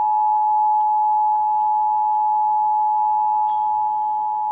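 Emergency Alert System attention signal: a loud, steady two-tone alarm held without a break, the alert that announces an emergency warning, here a tornado warning.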